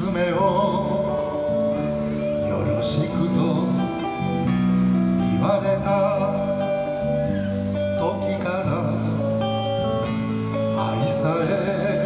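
Acoustic guitar and electric bass playing a song live, the bass holding long low notes under the guitar.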